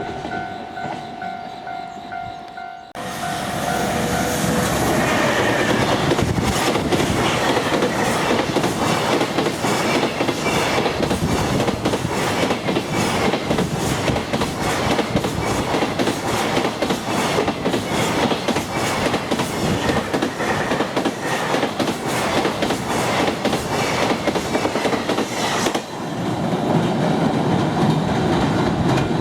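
Level crossing warning bell ringing steadily. About three seconds in, an EF210 electric locomotive and its freight train pass close by, wheels clattering over the rail joints for over twenty seconds. The noise drops off near the end.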